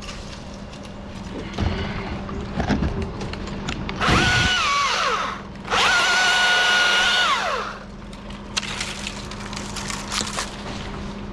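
Small chainsaw revved at full throttle twice, about one and two seconds long, the pitch falling away at the end of each as the throttle is let off.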